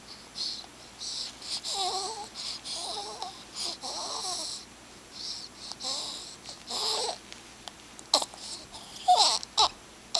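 Newborn baby cooing and grunting in a string of short, breathy sounds, with a few sharper squeaks near the end.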